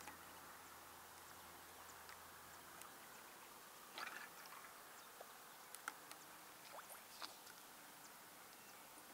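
Near silence, with a faint low hum that stops about three seconds in and a few soft clicks.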